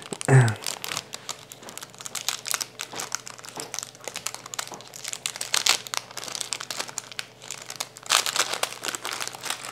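A Paqui One Chip Challenge packet being torn open and crinkled in gloved hands: a continuous run of sharp crinkles and tearing, with louder bursts around the middle and again near the end.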